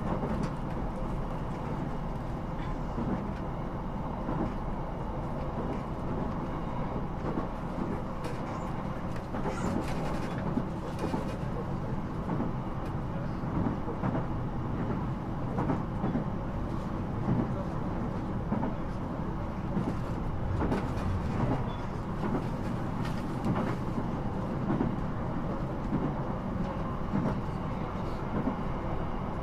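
Interior sound of a Sendai Airport Line electric train running between stations: a steady rumble of wheels and motors, with faint occasional clicks.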